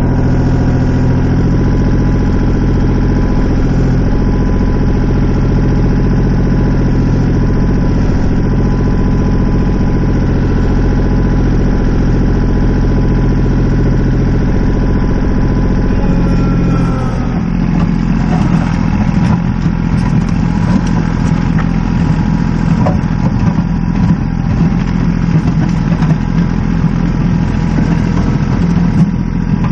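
Tractor engine running steadily, then about halfway through its sound turns rougher and more uneven.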